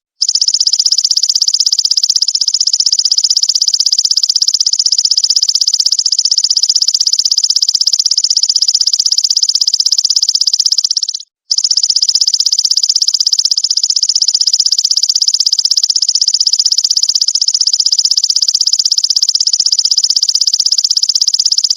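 Belalang emas (golden grasshopper) stridulating: a loud, continuous, rapidly pulsed high buzz, broken once by a short gap about eleven seconds in.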